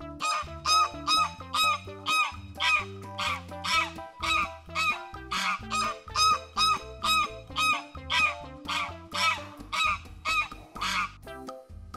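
Fast run of honking waterfowl calls, about two a second, stopping about a second before the end, over children's backing music.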